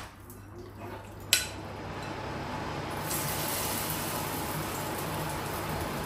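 Pumpkin and gram-flour pakora batter shallow-frying in hot oil in a frying pan: a sharp clink about a second in, then steady sizzling as spoonfuls of batter go into the oil.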